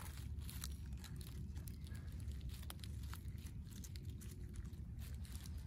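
Faint rustling and scattered small crackles of dry leaf litter and plant stems being handled, over a low steady rumble.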